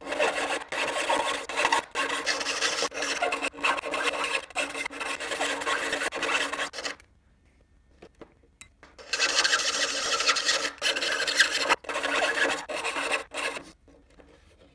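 Handheld rotary tool grinding and sanding the edge of an opening in a composite model-aircraft fuselage, enlarging it until a carbon mount plate fits. It runs for about seven seconds, stops for about two, then runs again for about four.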